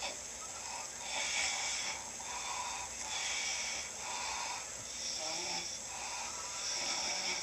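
Snoring: a steady run of noisy breaths, alternating in and out about every second.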